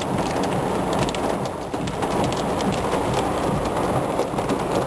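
Heavy rain mixed with pea-sized hail pelting down: a dense, steady rush of rain with many small sharp ticks of hailstones striking.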